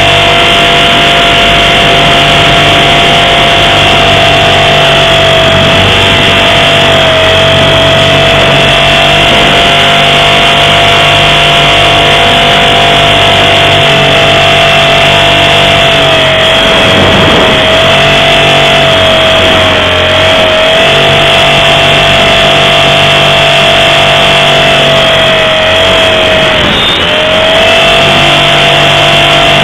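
Blade 450 3D electric RC helicopter heard up close from its onboard camera: a loud, steady motor and gear whine with rotor noise. The whine dips briefly in pitch a few times during the flips, most deeply near the end.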